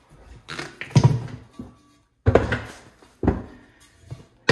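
Off-road tire being worked off its beadlock wheel by hand: a series of about four rubbery thumps and scrapes as the tire and rim are pulled apart.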